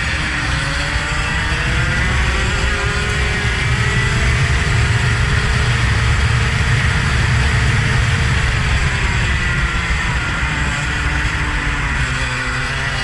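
A vehicle engine running hard under load, with a heavy low rumble. Its pitch climbs slowly, peaks around the middle, then falls away again near the end as the revs drop.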